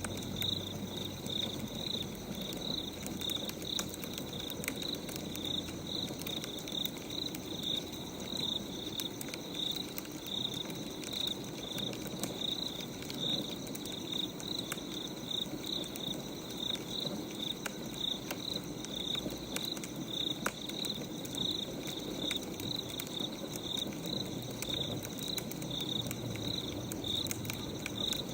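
Crackling wood fire, with a high chirp repeating about twice a second throughout.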